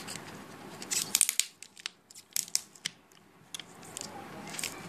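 Plastic wrap crinkling and cardboard packaging rustling as a small box is unwrapped, in clusters of sharp crackles about a second in and again near the end, with scattered clicks between. Scissors snip at the box's sealing tape near the end.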